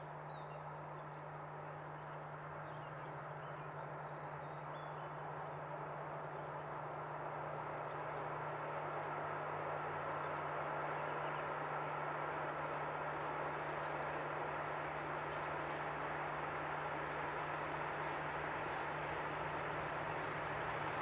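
Diesel locomotive hauling a container freight train, approaching from a distance: a steady low engine hum and rumble grow gradually louder as it nears, with faint bird chirps early on.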